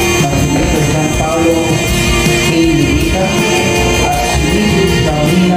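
Music: a song with a singing voice over instrumental backing.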